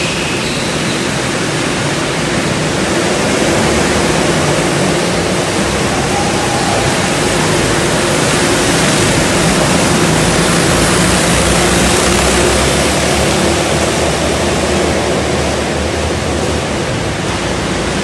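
Several petrol go-kart engines running together on a track, heard as a loud, steady din that echoes around a large indoor hall, with faint engine notes wavering up and down.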